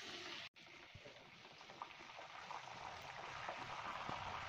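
Fresh curry leaves sizzling in hot oil with dried red chillies and dals, a faint steady frying hiss. It cuts out briefly about half a second in, then grows a little louder as the leaves are stirred.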